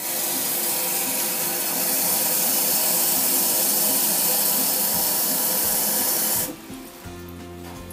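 Tap water running from a kitchen faucet into a glass measuring cup, a steady splashing hiss that cuts off about six and a half seconds in as the tap is shut.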